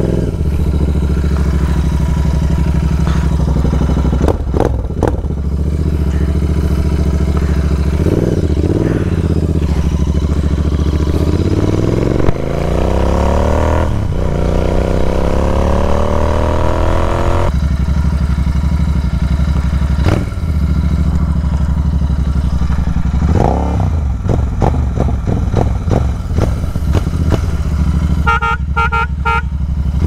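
Royal Enfield 650 parallel-twin engine through an open, barrel-type aftermarket exhaust, heard while riding. It runs at low revs, then accelerates in a long rising rev from about twelve seconds in, which cuts off suddenly a few seconds later. After that it settles back to low-rev running with another short rise in revs.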